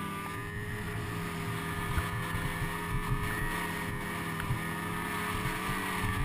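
Ski-Doo mountain snowmobile engine running at a steady, high pitch under throttle as the sled ploughs through deep powder.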